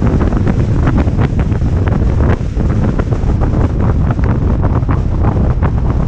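Wind buffeting the microphone of a camera on a moving car: a heavy, steady rumble with constant irregular crackles and gusts.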